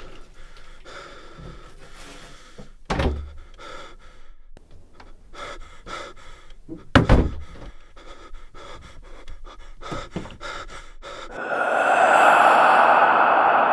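A person panting heavily, with short knocks and thunks mixed in and two louder bangs about 3 and 7 seconds in. Near the end a loud, harsh, sustained sound takes over.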